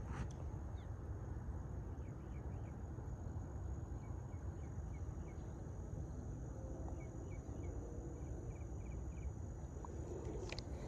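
Outdoor ambience: a steady low rumble, with a run of short, high chirps from small animals over the middle of it.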